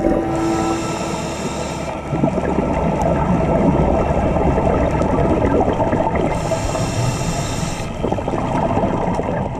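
Underwater sound of a scuba diver breathing through a regulator: a steady muffled rumble of bubbles, with two hissing inhalations, one about a second in and another around six seconds in.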